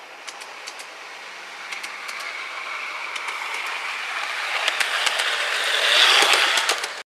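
A garden-railway model of Union Pacific Alco locomotive 1195 approaching along the track and passing close by. Its wheels click over the rail joints and there is a faint whine. The sound grows steadily louder, peaks as it passes about six seconds in, then cuts off suddenly.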